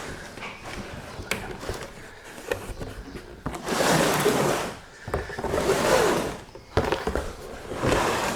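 Cardboard packaging being opened and handled: a few light taps and clicks, then three longer rustling, scraping passes as the box is opened and the contents are uncovered.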